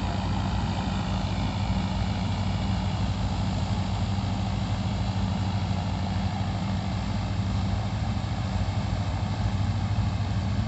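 A combine harvester's diesel engine running steadily at an even, unchanging pitch, with mechanical clatter over it.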